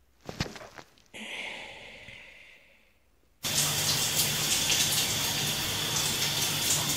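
A few soft rustles and a quieter fading sound, then about three and a half seconds in a shower starts abruptly and runs steadily, water spraying over a person scrubbing their long wet hair.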